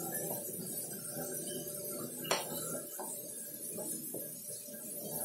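A wooden spatula stirring and scraping food around a nonstick wok, with a sharp knock against the pan about two seconds in and a few lighter clicks after it, over soft background music.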